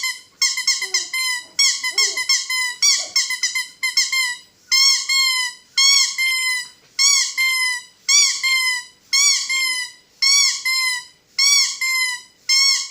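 Rubber squeaky toy being squeezed over and over. It starts with quick runs of short squeaks, then about five seconds in settles into single longer squeaks, a bit more than one a second, each a high squeak that bends up and then down in pitch.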